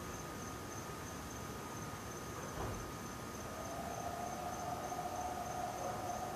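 Night chorus of insects: a steady, high-pitched trill throughout, with a lower drawn-out tone joining about halfway through and holding steady.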